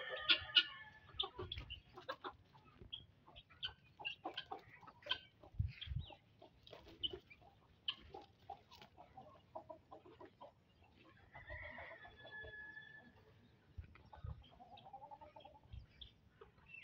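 Domestic chickens clucking, with many short, sharp calls scattered throughout and a couple of longer held notes about two-thirds of the way through. A few dull low thumps occur now and then.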